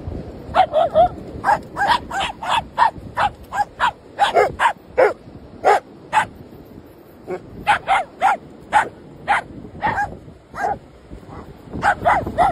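A dog barking in quick runs of sharp, high yaps, with short pauses between the runs.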